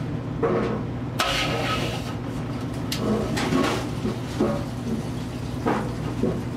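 Well pump running after the breaker is flipped, water filling a newly installed well pressure tank: a steady low hum with irregular hissing surges of water and air pushing through the fresh plumbing.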